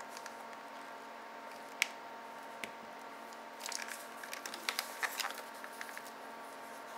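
Handling noise as an ELMO 350 SL Macro Super 8 film camera and its strap are turned in gloved hands: scattered small clicks and rustles, a sharp click about two seconds in and a cluster of them between about three and a half and five seconds, over a steady faint hum.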